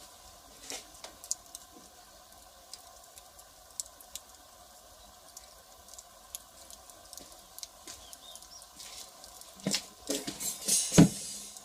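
Firewood fire crackling with scattered sharp pops. Near the end comes a louder burst of crackling and a single heavy knock.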